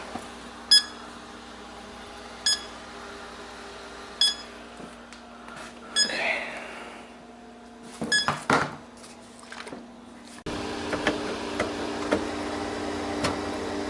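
Four short electronic beeps, evenly spaced about two seconds apart, over the steady hum of a running refrigerator. A few brief clicks and handling noises follow, then the hum gets louder near the end.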